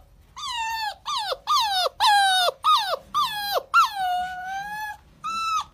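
A beagle puppy howls in a run of about eight short howls, each falling in pitch. One longer, drawn-out howl comes just before the last seconds.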